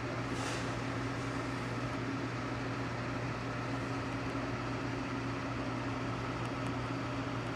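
Steady low hum over a constant hiss, unchanging throughout.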